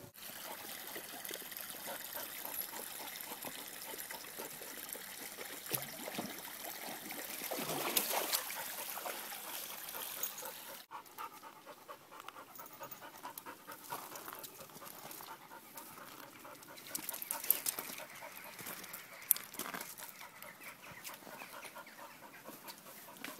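A dog panting, with a few sharp clicks in the second half.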